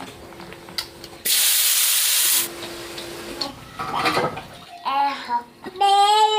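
A loud hissing rush lasting about a second, starting and stopping sharply. Near the end a high-pitched voice calls out.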